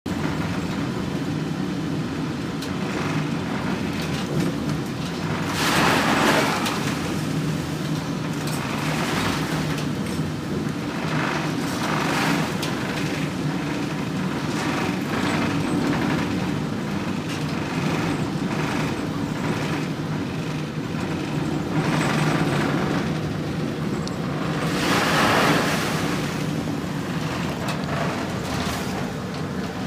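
Steady low drone of a ship's engine, heard from inside the bridge. Surges of rushing, splashing water come as heavy seas break over the bow and spray hits the windows, the two biggest about six seconds in and about twenty-five seconds in.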